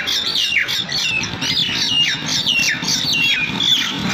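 Myna calling over and over: short harsh notes that each drop in pitch, about two a second.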